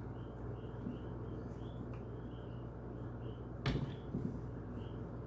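Portable washing machine motor running with a steady low hum, over faint short high chirps repeating about twice a second. One sharp click or knock stands out a little over two thirds of the way through.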